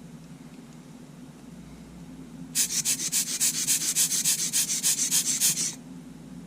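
Rapid scratchy rubbing, about eight strokes a second for some three seconds, starting a little after two seconds in, over a steady low hum. It comes from work to clear sand out of a Sony A7's shutter button assembly.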